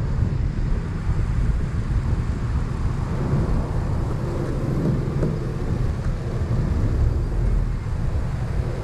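Steady low rumble of wind buffeting the microphone over the noise of a moving vehicle.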